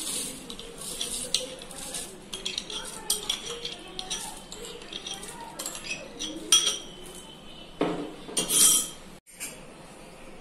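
A steel spoon scraping and clinking against a glass bowl as dry whole masoor dal is tipped out of it into an aluminium pressure cooker. One clink rings on briefly about six and a half seconds in, and the scraping is loudest around eight to nine seconds.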